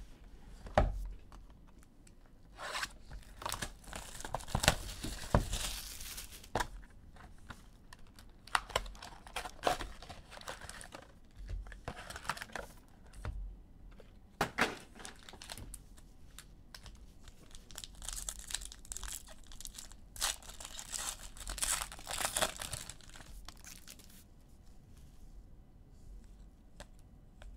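Panini Recon basketball card packs being torn open, their wrappers ripping and crinkling in repeated bursts with short pauses between.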